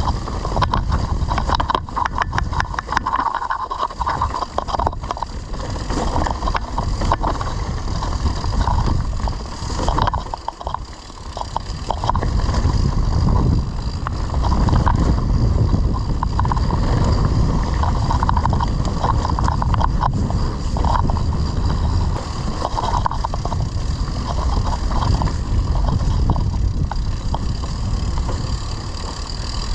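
Wind rumbling on the microphone during a mountain-bike ride, with a run of quick clicks and rattles from the bike over rough ground, thickest in the first several seconds. The rumble eases briefly about ten seconds in.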